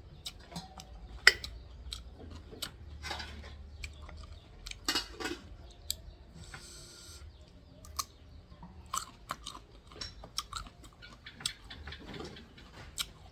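A person chewing a mouthful of rice and stir-fried minced pork with prahok, with irregular wet mouth clicks and smacks.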